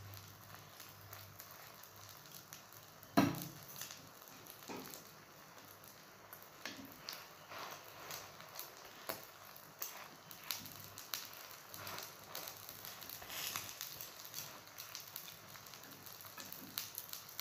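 Egg and roti frying in oil in a hot pan, with faint sizzling and scattered crackles. A single louder knock about three seconds in, as oil is spread over the top of the roti with a utensil.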